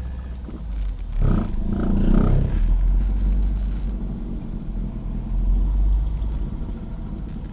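Engine idling roughly with a steady low rumble, swelling louder for a moment about a second in.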